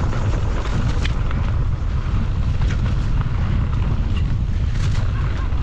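Wind buffeting the microphone of a camera carried on a moving mountain bike, with a few scattered clicks and rattles from the bike on rough ground.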